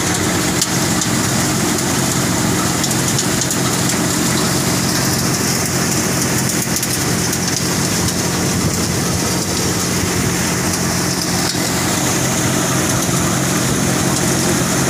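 Tractor-driven thresher running steadily while threshing cumin: a constant engine and drum hum with a hiss of seed and chaff moving through the machine.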